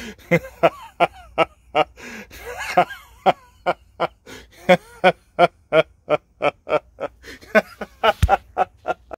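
A man's uncontrollable laughing fit: a long run of short pitched bursts, about three a second.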